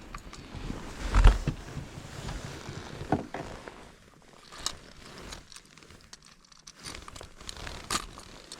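Rustling and scattered knocks of handling, with one loud low thump about a second in.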